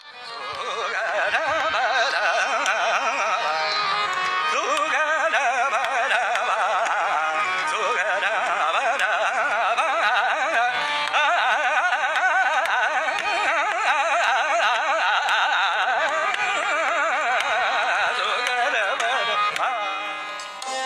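Indian classical vocal music: a singer's voice running through rapid, wavering ornamented passages over the steady drone of tanpuras.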